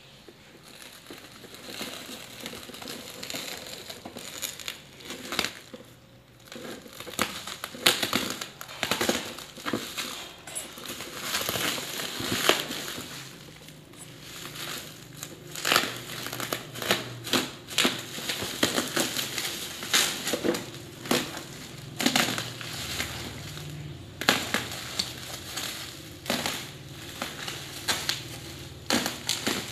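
Plastic packaging and bubble wrap being torn open and crumpled by hand, with irregular crackling and rustling.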